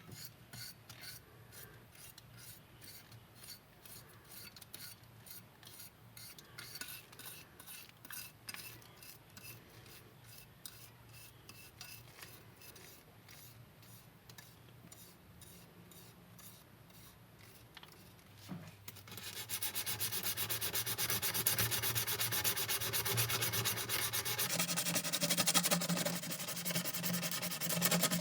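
Abrasive rubbing on a model truck's parts: soft repeated sanding or filing strokes, then, about two-thirds of the way in, a much louder continuous sanding over a steady low hum.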